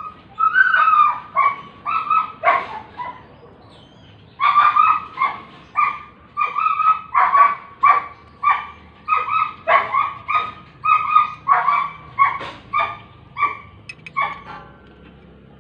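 A dog barking over and over, about two barks a second, with a short break about three seconds in.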